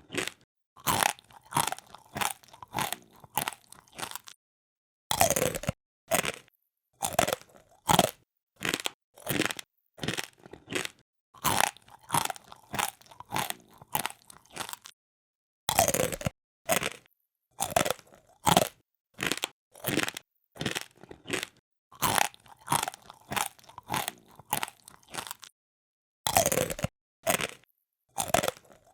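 A person chewing crunchy food close to the microphone: crisp, repeated crunches at about two a second, in runs broken by short pauses.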